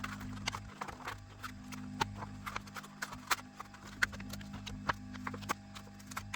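Irregular small clicks and taps of a pry tool working along the glued seam of a plastic smartphone housing, cutting through the old adhesive.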